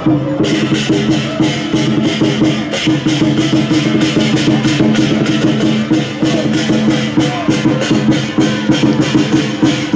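Music with a fast, steady beat over sustained low tones.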